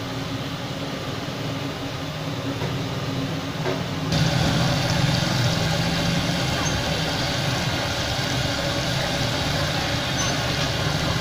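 Restaurant room tone with a steady hum, then, after a sudden change about four seconds in, chicken pieces deep-frying in a large wok of hot oil: a steady, even sizzle over a low hum.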